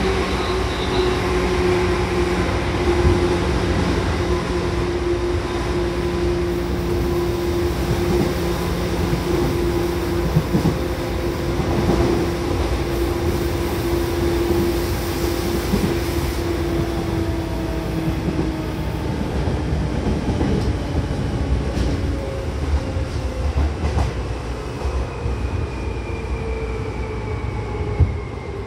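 Seibu 2000 series electric train running, with a steady motor and gear whine that slowly falls in pitch as the train slows, over rumbling wheel and rail noise. A few sharp knocks from rail joints come through around the middle and later on.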